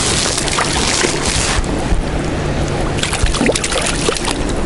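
A hooked trout splashing and thrashing at the water surface as it is played to the bank, in two spells of splashing, the second from about three seconds in, over steady wind rumble on the microphone.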